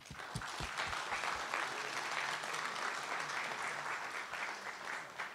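Audience applauding, starting suddenly and thinning out near the end.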